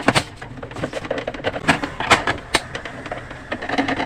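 Irregular sharp clicks and knocks of a plastic portable radio's casing being handled and worked on as it is opened up.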